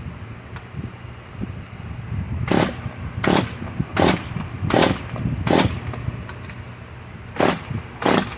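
Stihl MS 193 T two-stroke chainsaw being pull-started: a quick run of about five recoil-starter cord pulls, then two more near the end, and the engine does not catch. The owner suspects it is flooded with too much gasoline, or has a bad coil.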